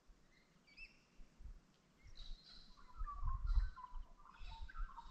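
Australian magpie warbling, its gliding notes starting about two seconds in and running on, with higher, shorter bird chirps before and over it. A low rumble a little past halfway is the loudest moment.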